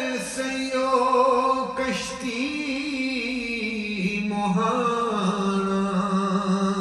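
A man's solo voice chanting a naat, sliding through ornamented melodic turns and settling into a long held note about halfway through.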